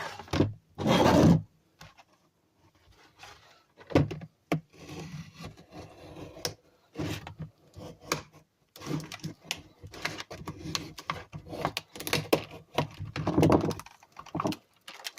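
Product packaging being cut open with a knife and handled: scraping, rustling, and scattered clicks and knocks, with a loud scrape about a second in.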